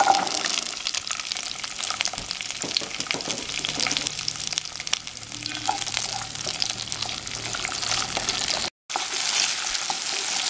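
Whole shallots sizzling and crackling in hot oil in a non-stick kadai, with a wooden spatula scraping and stirring them. The sound cuts out completely for a moment about nine seconds in.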